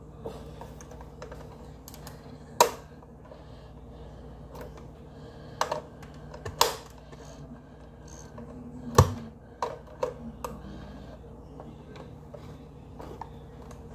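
Metal wire beaters of an electric hand mixer clicking and clacking against each other and the mixer body as they are pushed into their sockets, the mixer itself not running. A few sharp, separate clicks, the loudest about a fifth of the way in and again past halfway.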